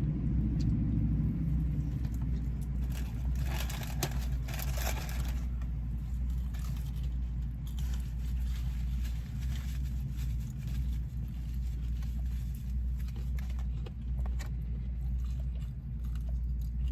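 Steady low rumble of a car heard from inside the cabin, with a few short crunching sounds of someone eating fried chicken a few seconds in.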